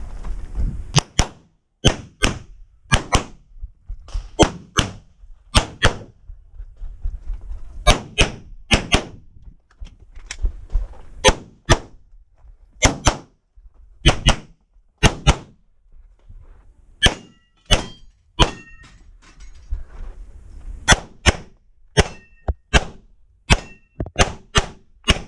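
Handgun rapid-firing through an IPSC stage: about thirty sharp shots, mostly in quick pairs, broken by a few short pauses. A few of the shots are followed by a short ringing tone.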